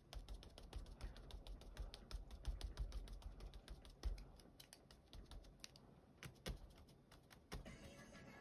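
Rapid soft tapping of a round ink-blending dauber pressed again and again onto paper through a plastic stencil. The taps come thick and fast for the first few seconds, with one heavier thump about four seconds in, then thin out into scattered clicks.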